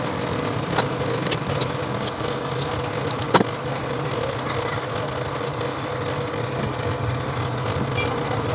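Steady low mechanical hum with a few sharp metallic clicks as the turns counter and wire guide of a transformer coil winding machine are set by hand. The loudest click comes about three seconds in.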